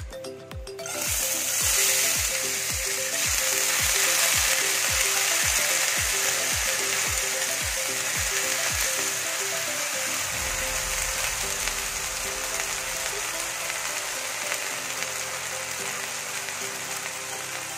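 Washed, still-wet split moong dal poured into hot ghee in a nonstick frying pan, sizzling. The sizzle starts about a second in, is loudest soon after and eases off gradually. Background music with a steady beat runs underneath.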